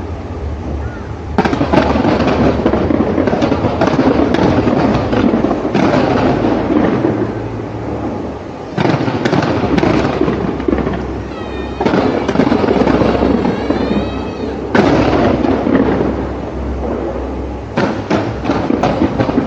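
Large fireworks display, with continuous crackling and banging bursts and a fresh barrage starting sharply every few seconds. About halfway through, several wavering whistles rise and fall over the crackle.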